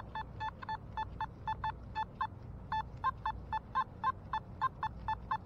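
Nokta Makro Simplex metal detector sounding its target tone through its speaker: short high beeps, about four a second, as the coil sweeps back and forth over a target. The detectorist takes it for a deep penny.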